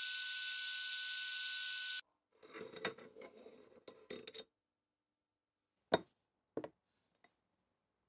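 Metal lathe turning a steel bar, the tool cutting with a steady hiss; it stops abruptly about two seconds in. Soft rubbing and clinking of the bar being handled in the chuck follow, then two sharp clicks.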